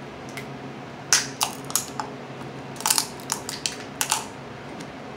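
Snow crab leg shells cracking: a run of about ten sharp cracks and clicks, from about a second in to about four seconds in.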